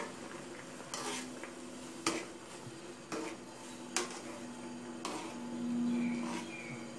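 A wire-mesh skimmer stirring shrimp wontons in a pot of boiling water, knocking and scraping against the metal pot about once a second, over a steady low hum.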